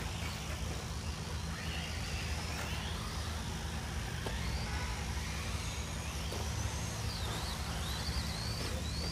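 Radio-controlled cars running, their electric motor whine rising and falling in pitch several times over a steady low rumble.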